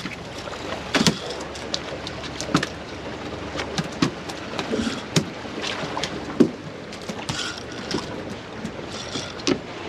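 Water slapping and sloshing against a boat's hull, with wind on the microphone and many short sharp clicks and knocks scattered throughout.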